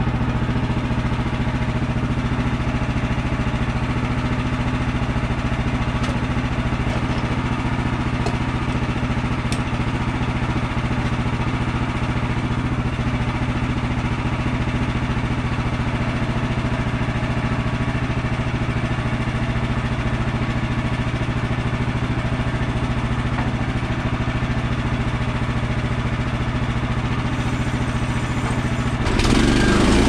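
Gas engine of a Woodland Mills HM130MAX bandsaw sawmill running steadily while the blade cuts a frozen balsam fir log. About a second before the end the engine note changes and gets a little louder.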